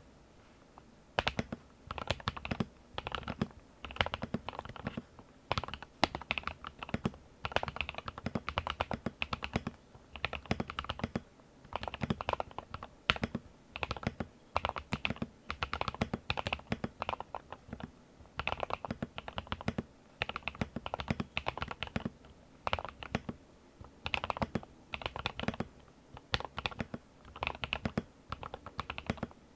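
Typing on an Akko 5075S mechanical keyboard fitted with Aflion Blue Sky switches: quick runs of key clacks with short pauses between them, starting about a second in.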